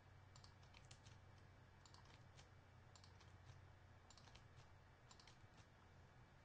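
Near silence with faint computer key clicks in small clusters about once a second, over a low steady hum.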